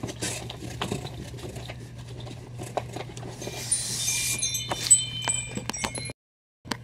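Comic books and packing being shuffled and lifted out of a cardboard shipping carton, with small knocks and rustles over a steady low hum. About four seconds in comes a light jingle of several ringing metallic tones, like chimes. The sound cuts out for about half a second near the end.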